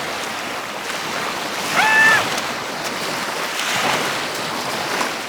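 Waves breaking and washing on a beach, a steady rushing, with a brief high-pitched cry about two seconds in.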